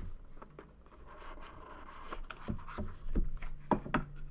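A cardboard trading-card box being handled and opened: light scraping and rustling with several soft knocks and clicks, most of them in the second half, over a faint steady room hum.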